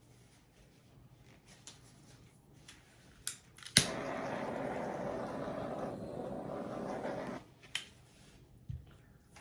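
Electric air blower switched on with a click about a third of the way in, running steadily for about three and a half seconds and cut off abruptly, blowing wet acrylic paint across the canvas in a Dutch pour. A few small clicks and knocks before and after.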